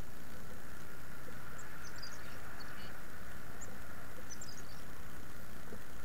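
Small songbirds giving short, high chips and call notes in two brief flurries, over a steady outdoor noise.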